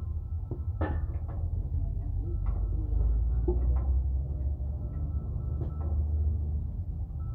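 A heavy engine idling with a steady low rumble, with scattered short knocks and clinks over it.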